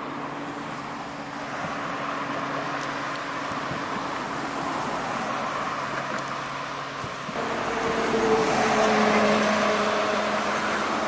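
Road traffic: a motor vehicle running with a steady engine hum and tyre noise, growing louder about seven seconds in as a vehicle passes, its hum sinking slowly in pitch.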